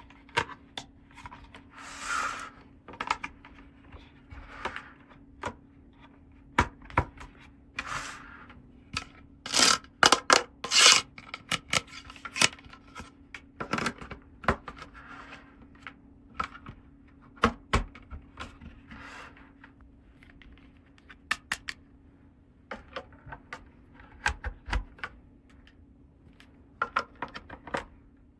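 Small plastic toy pieces and packaging being handled: irregular clicks and taps mixed with short rubbing and scraping sounds.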